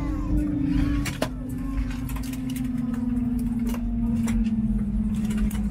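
Airliner engine hum winding down, slowly falling in pitch, over a low cabin rumble, with scattered small clicks and knocks.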